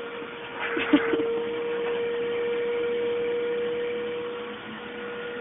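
Vacuum cleaner running with a steady motor whine, with a brief knock about a second in.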